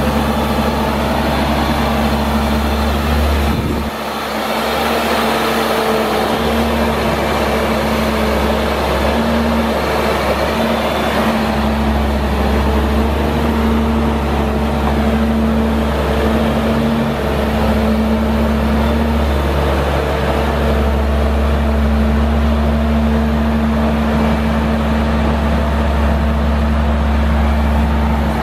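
Caterpillar C7 inline-six diesel of a Sandvik DX780R crawler drill rig idling steadily, a deep even hum, with a brief dip about four seconds in.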